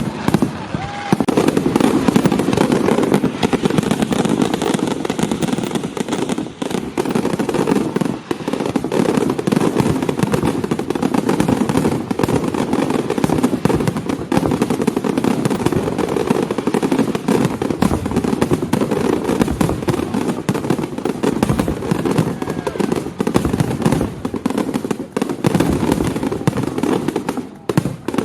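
Fireworks going off in a dense, unbroken barrage of rapid bangs and crackling.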